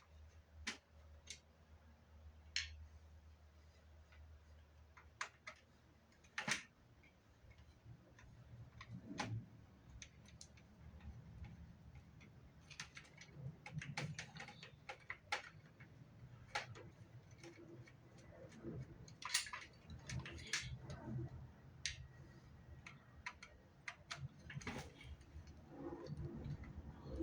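Scattered light clicks and taps with soft handling noise, from small plastic parts, knobs and screws of a Fostex MR-8 recorder being handled during disassembly; the clicks come more often from about a third of the way in.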